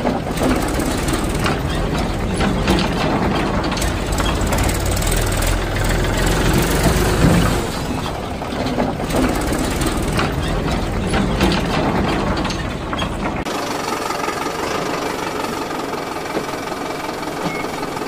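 Diesel engine running with a knocking idle. About three-quarters of the way through, the rumble cuts to a thinner sound with little bass.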